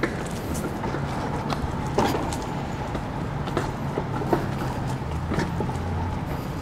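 Steady low hum of city traffic, with irregular knocks of footsteps on a brick path.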